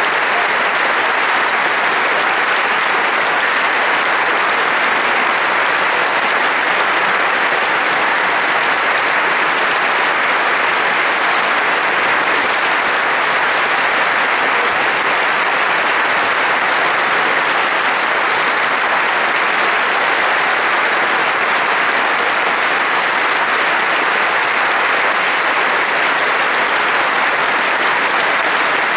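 Large concert audience applauding steadily, a dense, unbroken sound of clapping.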